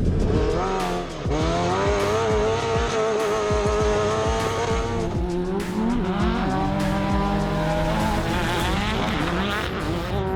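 Off-road race vehicle's engine under hard throttle. The revs climb steadily and drop back sharply about three times: at about one second in, around five to six seconds, and near the end.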